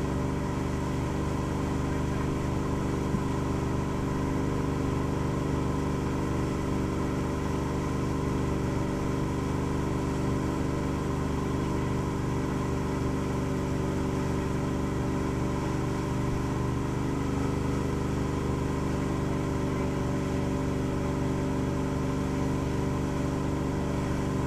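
Towing boat's inboard engine running at a steady speed, a constant drone that does not change pitch, with the rush of the churning wake behind the boat.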